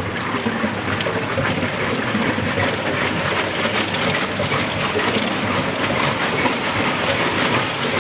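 Tube ice machine running: a steady rushing noise packed with fast small clattering ticks.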